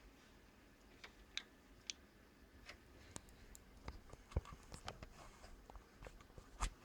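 Faint, irregular clicks and taps of computer parts being handled during a graphics card installation, with two louder knocks, one about four seconds in and one near the end.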